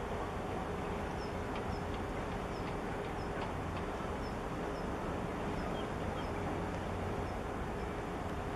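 Steady outdoor rumble and hiss with a faint steady hum under it, and a small high chirp repeating about once or twice a second.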